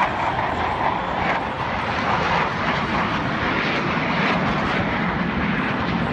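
Blue Angels F/A-18 Hornet jets flying past in formation: a continuous, loud rush of jet engine noise that holds steady throughout.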